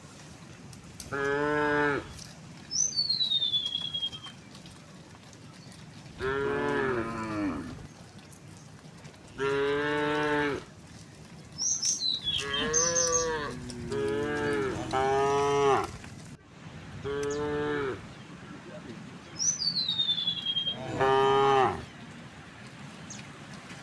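Cows mooing again and again: about seven long moos of a second or two each, some following close on one another. A high, falling whistle comes three times between them.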